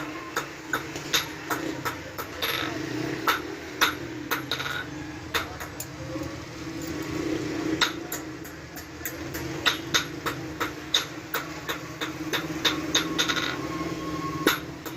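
Hammer striking metal in blacksmith forging: a run of sharp, irregular blows, some ringing briefly, over a steady low hum.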